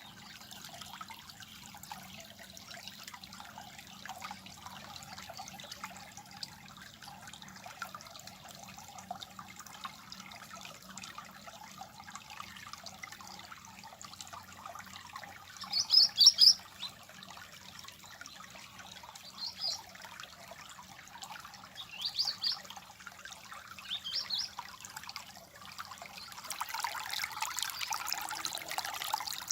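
Water trickling and babbling in a stream, with a bird giving a few short high chirps, the loudest about halfway through. The water grows louder near the end.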